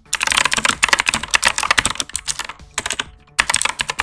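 Fast typing on an HP GK400F mechanical keyboard with clicky blue switches: a dense run of keystroke clicks, a brief pause a little under three seconds in, then another quick flurry.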